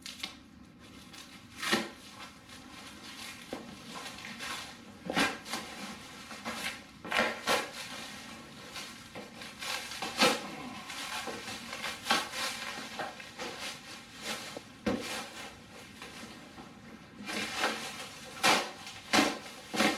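Layers of clear plastic wrap being cut with a box cutter and pulled off a cardboard box: irregular crinkling and rustling, with sharp crackling rips every few seconds and several in quick succession near the end.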